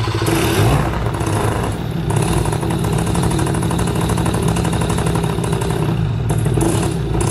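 Paramotor's Nitro 200 single-cylinder two-stroke engine running at a raised idle just after starting, with a brief rise in revs about half a second in. It runs on an ignition coil repaired with a wood screw, which is thought to give a weak spark, so the idle screw has been turned up to keep it from dying at idle.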